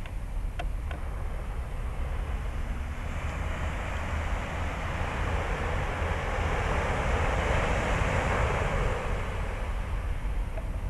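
Outdoor wind buffeting the microphone as a steady low rumble, under a rushing noise that swells about three seconds in and fades again near the end.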